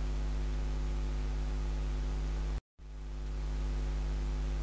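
Steady electrical mains hum with hiss from the recording. It cuts out completely for a moment a little past halfway, then fades back in over about a second.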